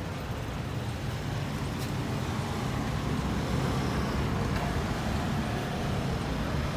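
Steady low rumble of street traffic, growing slightly louder.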